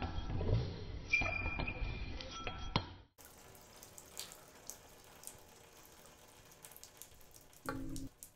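Sound effects of water pipes: rumbling and clanking for about three seconds, cutting off suddenly, then quiet with scattered ticks, and near the end a short pitched water-drip sound as a drop falls from the pipe.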